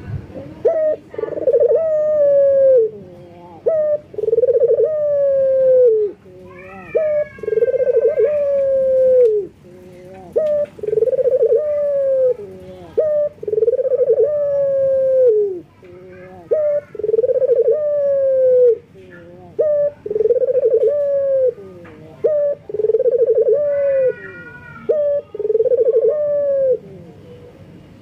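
Male Barbary dove (puter) cooing repeatedly in breeding condition, calling to a female: a short note followed by a longer coo that falls at its end, repeated about every three seconds, nine times.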